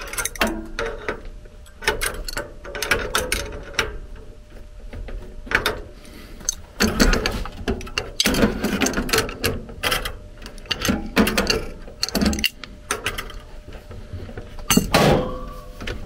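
Adjustable wrenches and metal fittings clinking and clanking as the wrenches are set on and worked against the brass nuts of a bolt-on thermostatic expansion valve. Irregular clicks and knocks, busiest in the middle, with one louder knock near the end.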